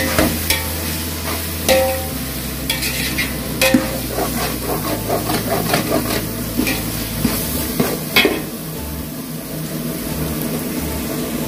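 Perforated steel ladle stirring and scraping a frying onion-tomato masala in a large metal pot. A steady sizzle of oil runs under irregular metal-on-pot clinks and scrapes, with a louder clank about eight seconds in.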